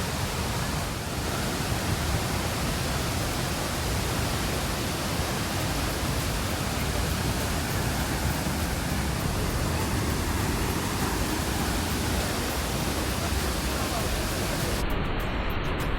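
Large waterfall in full monsoon flow: a steady, dense rush of falling water. Near the end the upper hiss cuts out abruptly.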